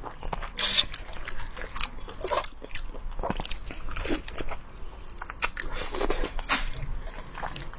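Close-up mukbang eating sounds: irregular biting, crunching and chewing, in quick uneven bursts.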